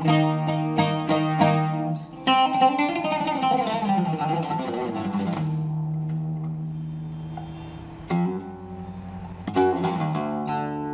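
Solo oud with a cedar soundboard, played unaccompanied. A quick run of plucked notes comes first, then a held note is left to ring out and fade about halfway through, followed by single plucks near the end.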